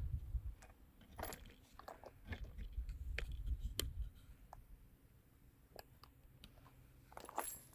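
Faint scattered clicks and rustling handling noise, with some low rumble near the start and again a few seconds in, then almost nothing; no gunshot.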